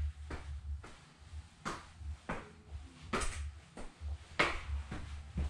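Footsteps on stairs and a concrete floor, a handful of separate knocks over a low rumble of camera handling.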